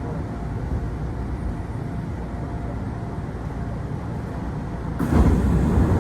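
Inside a Kintetsu Osaka Line local train car: a steady low rumble and hum. About five seconds in, a sudden louder rush of noise begins.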